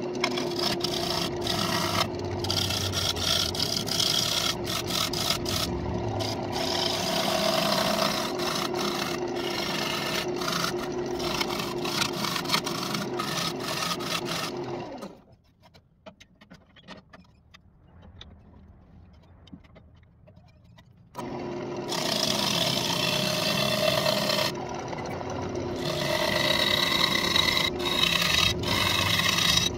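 Gouge cutting the inside of a spinning walnut bowl on a wood lathe: a steady rough scraping with shavings flying off. It breaks off for about six seconds around the middle, then starts again.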